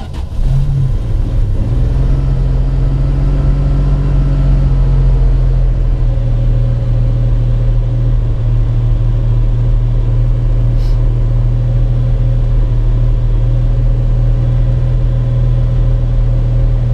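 1974 Plymouth Valiant's engine catching on a cold start, with a brief rev about half a second in, then running at a steady idle, heard from inside the cabin.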